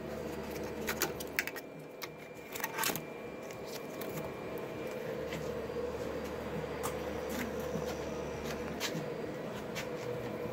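Scattered clicks and short rustles of hands pulling foam packing strips off a 3D printer's frame, over a steady hum.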